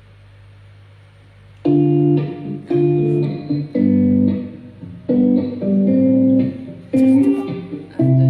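Music played over Bluetooth through a 15-inch plastic PA speaker cabinet: a guitar intro of chords, struck about once a second, that starts about a second and a half in, after a low steady hum from the system.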